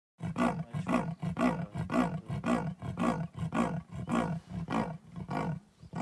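Leopard giving its sawing call: a steady series of about a dozen grunts at roughly two a second, trailing off near the end.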